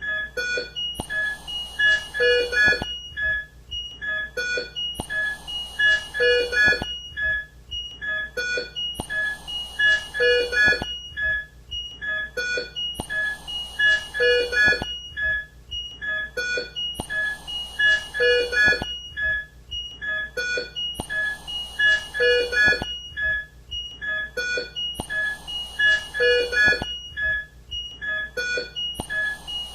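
Intensive care bedside equipment: a patient monitor and ventilator sounding rapid electronic beeps and alarm tones at several pitches. A short high hiss comes in each cycle, and the whole pattern repeats about every four seconds.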